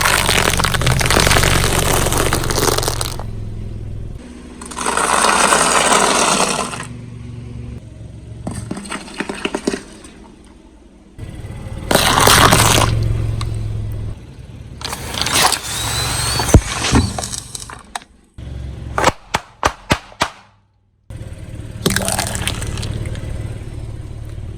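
A string of short separate clips of a car's tyres rolling over and crushing objects, with cracking, crunching and scraping over a low tyre-and-car rumble. Near the end comes a quick run of sharp snaps.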